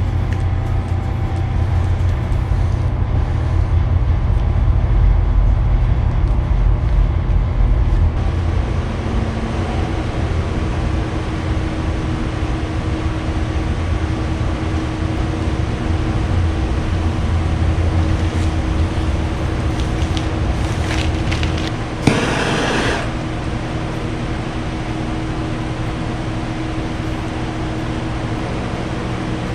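A steady mechanical hum with a low rumble, like a fan or motor running, heaviest early on. About 22 seconds in there is a sharp click and a hiss lasting about a second, after which the low rumble eases.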